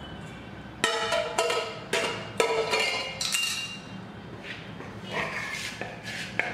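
A metal spoon clinking and scraping against a steel mixing bowl while stirring rice flour into hot jaggery syrup. About six sharp, ringing clinks come in the first few seconds, then softer scrapes and knocks.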